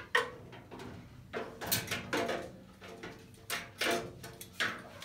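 Tool chest drawer dividers clacking as they are handled and linked together: about eight sharp knocks, each with a short ring.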